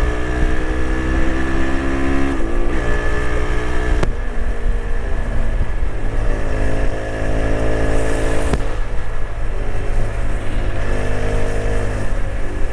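TVS Apache RTX 300 motorcycle engine accelerating hard through the gears. Its pitch climbs, then drops at three upshifts, with a sharp click at two of them, over steady wind rush.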